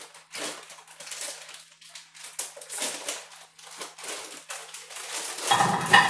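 Butter crackling and sputtering in a hot nonstick frying pan as a wooden spatula pushes it around, in short irregular crackles. A louder burst of sound comes near the end.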